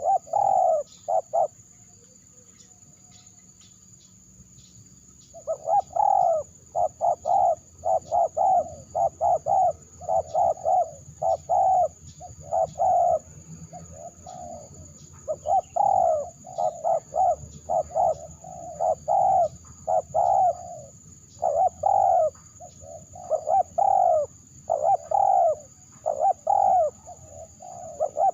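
Spotted dove cooing over and over in quick repeated phrases, falling silent for a few seconds near the start and then calling steadily again.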